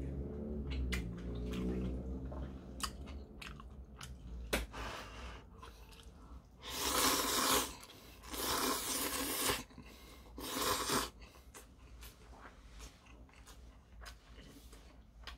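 A person eating instant fried noodles: wet chewing and lip-smacking clicks, with three loud noodle slurps about seven, nine and ten and a half seconds in.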